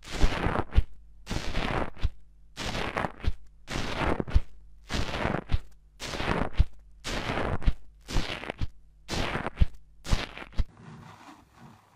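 Orange foamy slime in a tray pressed repeatedly with the end of a pen-like tool: about ten short noisy squishes, roughly one a second, each with a sharp click, dying away near the end.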